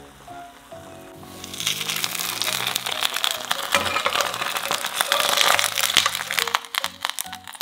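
Thin potato slices frying in oil in a frying pan, a dense sizzling crackle that swells up about a second and a half in and stays loud. Background music plays throughout.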